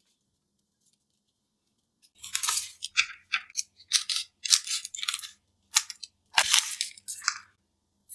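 Plastic card blind-bag wrappers crinkling and rustling in a string of short bursts as they are handled, starting about two seconds in after a quiet moment.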